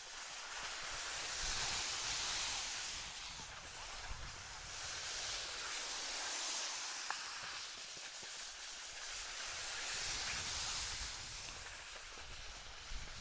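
Skis scraping and skidding over packed snow, a hiss that swells and fades in waves every few seconds with each turn.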